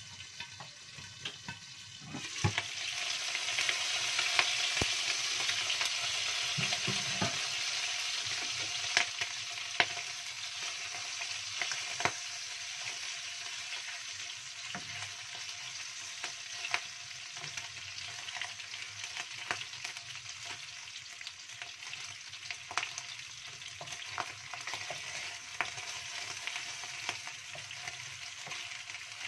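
Stingray pieces frying in oil in a nonstick wok: a muffled sizzle under the lid becomes loud sizzling about two seconds in, as the lid comes off. A wooden spatula then stirs and turns the fish, with sharp taps and spattering pops scattered through the sizzle.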